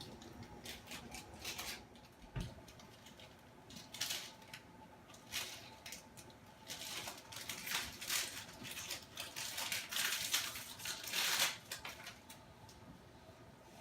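Irregular crinkling, rustling and crunching of a snack wrapper being handled, in short scratchy bursts that grow busiest about ten to eleven seconds in.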